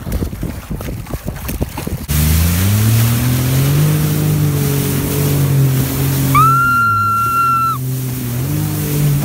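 About two seconds of choppy splashing and wind noise, then a sudden switch to a Sea-Doo personal watercraft's engine running steadily, its pitch wavering slightly up and down. A little past the middle, a high steady tone sounds for over a second.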